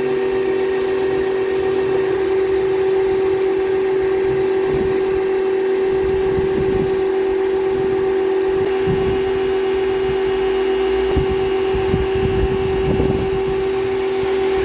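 AVA Go P40 electric pressure washer running at full pressure, a steady high hum from its motor and pump over the hiss of the water jet, with some irregular low rumbling along the way; it cuts off suddenly at the end.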